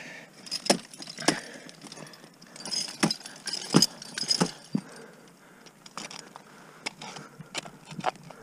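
An ice climber's hardware rack jangling and clinking, with a series of sharp knocks from crampons and ice tools set into the ice. The clinking is densest around the middle.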